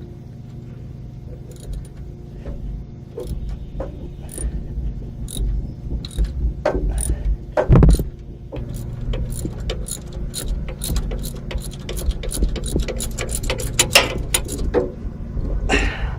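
Hand tools working on a battery cable connection under a van: a run of sharp metallic clicks that speeds up as it goes, like a ratchet wrench being worked, with one heavier thump about halfway through. A low steady hum runs underneath.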